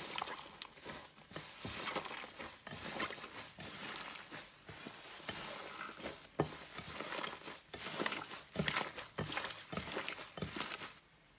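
Hands squeezing, kneading and pulling apart a fluffy slime, giving a dense run of irregular crackles, pops and squishes. The sound drops away just before the end.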